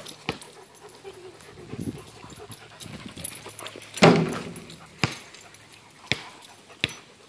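Dogs at play, panting and whining, with one loud outburst from a dog about four seconds in. A few sharp clicks follow it.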